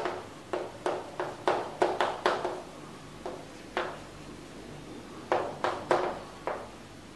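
Chalk writing on a chalkboard: a run of short, sharp taps and scrapes as letters are stroked out, with a pause of about a second and a half past the middle.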